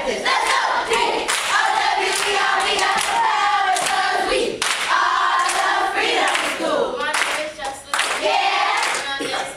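A group of children and adults singing and chanting together, with hand clapping.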